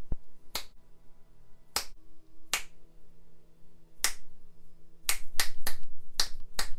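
A person snapping their fingers, about nine sharp snaps: a few spaced out at first, then a quicker run from about five seconds in.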